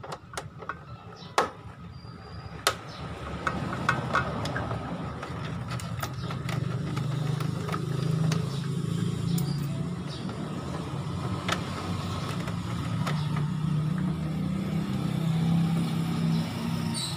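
A passing motor vehicle's engine rumble that builds about three seconds in and then holds steady, with a few sharp clicks of a screwdriver on a motorcycle body-panel bolt near the start.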